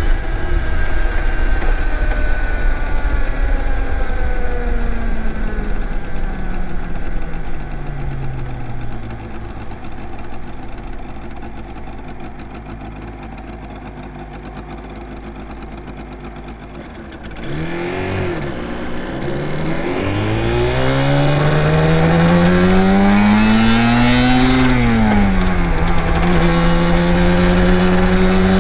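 Yamaha TDR250's two-stroke twin engine on the move. Its revs fall away and it runs low and quieter for a while, then about two-thirds of the way in it revs up and accelerates. The pitch drops briefly, as at a gear change, and then climbs again.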